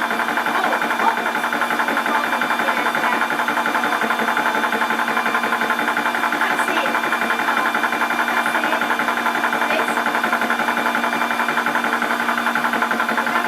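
Portable 12 V high-pressure PCP air compressor running steadily as it pumps up a small 0.25 L air tank, with a fast, even pulsing from its piston strokes.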